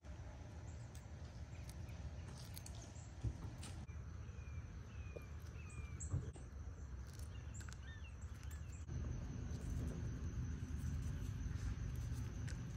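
Outdoor park ambience: a low rumble, a steady high insect drone and a few faint bird chirps, a short run of falling notes in the middle, with light ticks and two soft thumps.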